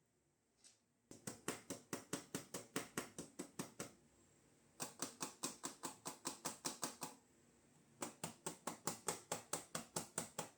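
Akko wireless gaming mouse button clicked rapidly, about six clicks a second, in three runs of a few seconds each with short pauses between.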